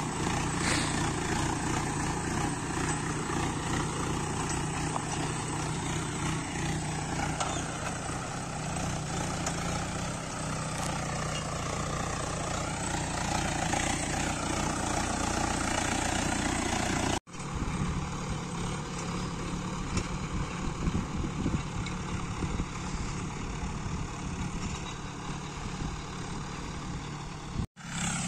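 Mahindra 585 Yuvo tractor's diesel engine running steadily under load in medium gear with four-wheel drive engaged, pulling a tine cultivator through hard, dry soil. The sound drops out for an instant twice, about two-thirds of the way in and near the end.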